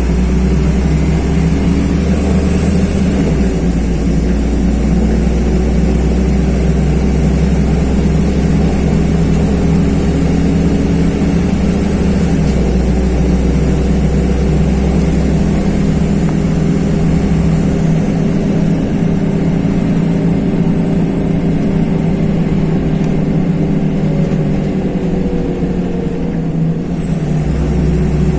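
LiAZ-5292.21 city bus driving, heard from inside the cabin: the diesel engine running steadily under road noise, its low note shifting a few times.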